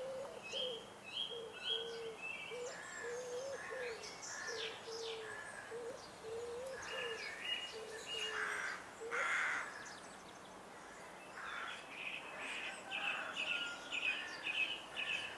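Birds calling: a low short note repeated about twice a second through the first half, with higher short chirps throughout that come fastest near the end.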